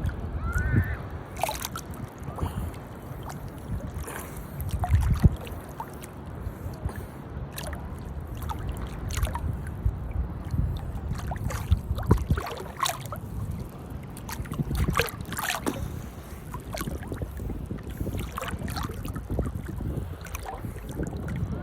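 Atlantic Ocean water splashing and lapping: irregular slaps of water over a steady low rumble.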